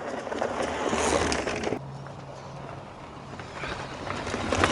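Mountain bike rolling off along a dirt trail: tyre and trail noise that builds over the first second or so, drops suddenly, then swells again near the end.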